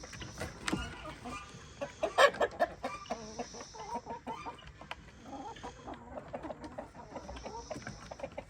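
Chickens clucking, a flock of many short calls, with a louder outburst of squawks about two seconds in.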